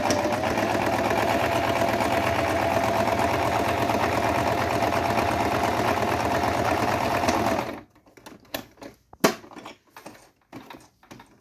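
Singer 1507 electric sewing machine sewing a stitched (multi-step) zigzag. The motor runs at a steady speed with a constant whine for about eight seconds, then stops suddenly. A few scattered clicks of handling follow, one of them sharper.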